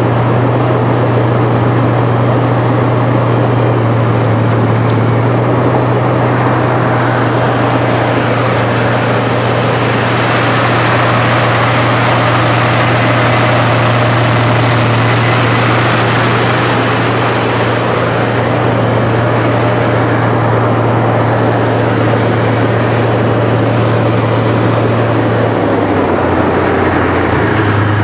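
Tank's diesel engine running steadily as the tank drives across the ground. It makes a loud, constant low drone under a dense rumbling noise, and the engine note dips and comes back near the end.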